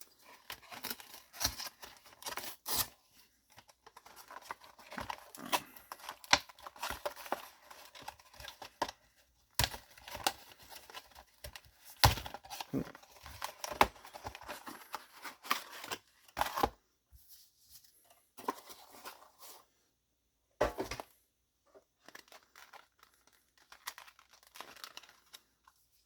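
Crinkly trading-card packaging being torn open and handled, with irregular sharp crackles and rustles that thin out into scattered bursts in the last third.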